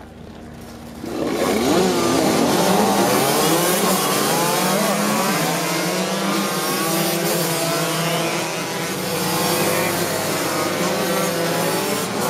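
A pack of racing moped engines starting together about a second in, then revving hard as the mopeds pull away from the start. Many engine notes overlap, each rising and falling in pitch.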